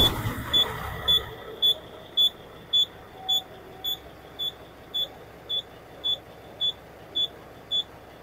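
A cab warning beeper sounding a short, high single-tone beep about twice a second, steady and unbroken. Beneath it the truck's Cummins diesel idles faintly, with a louder wash of sound in the first second that dies away.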